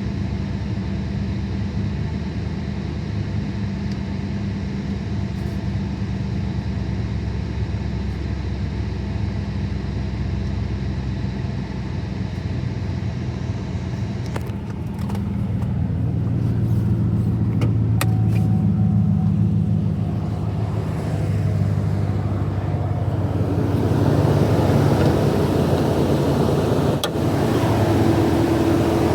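Car engine running at idle with a misfire on cylinder 2 after a cold start. About halfway through the sound grows louder and fuller, with a few clicks.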